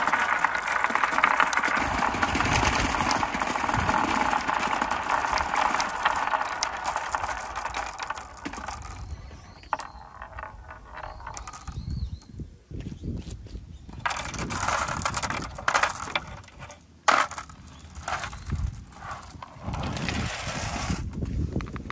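Many marbles and balls rolling down a wooden chute in a steady clatter. After about eight seconds this thins to scattered clicks and short rattles as they knock together in the collecting gutters, with one sharp knock about seventeen seconds in.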